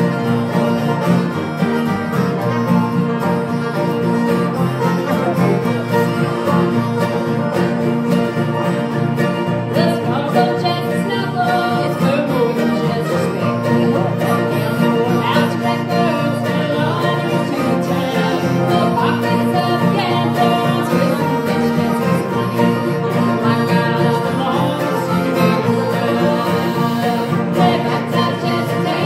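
Live bluegrass band playing steadily, with several acoustic guitars strumming alongside banjo and mandolin.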